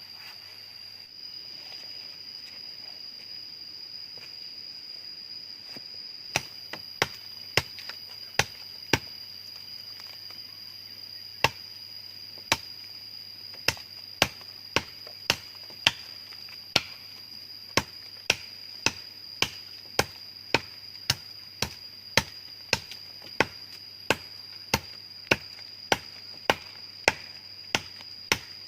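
A blade chopping wood in sharp, evenly spaced strikes. They start about six seconds in, pause briefly, then settle to about two a second. A steady high-pitched insect drone runs underneath.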